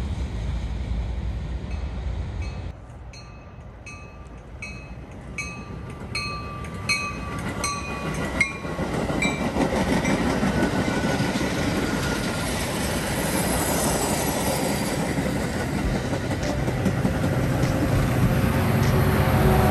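A low rumble for the first few seconds, then a bell ringing about twice a second as a train approaches, then a Metra commuter train of bilevel gallery cars passing at speed, a steady rumble with wheel clatter.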